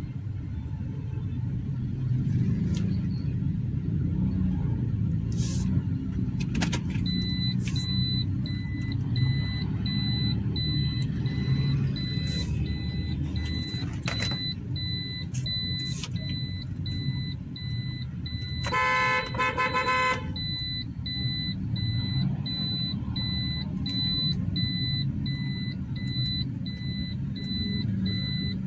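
Toyota Corolla driving on the road during a brake test, with a steady low engine and road rumble. A car horn honks once, for about a second and a half, some 19 seconds in. From about 7 seconds in, a high electronic beep repeats about twice a second.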